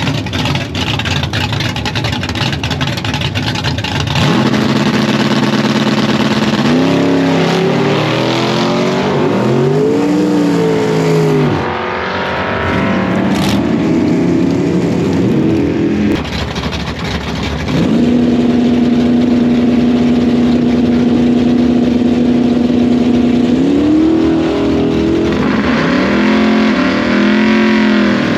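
Fox-body Ford Mustang drag cars' engines. One goes from a choppy idle to being held at steady high revs, then climbs and drops in pitch several times as it pulls away through the gears. Later a second engine is held at one steady pitch for several seconds, then revs rise and fall again near the end.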